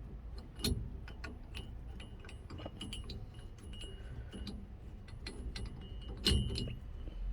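Light metallic clinks and taps of a steering wheel puller's steel plate and bolts being handled and threaded in by hand. The clicks are irregular and ring briefly, with the two loudest about a second in and near the end.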